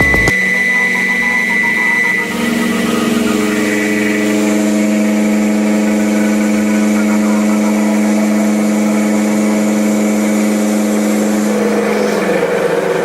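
CNC drilling-milling machine running: a loud, steady whine of several held tones from its drives, shifting pitch about two seconds in and again near the end.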